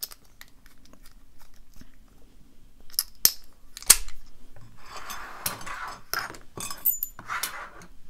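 Small screwdriver tightening a screw into a steel Kryptonite KS72 padlock body while the lock is handled, giving light metallic clicks and scraping. A sharp click about four seconds in is the loudest.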